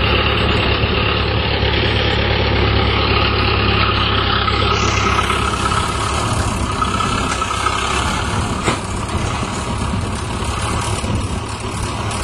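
Old farm tractor's engine running steadily while the tractor, bogged in deep mud, tries to drive out on logs wedged under its rear wheels. One short knock comes about three-quarters of the way through.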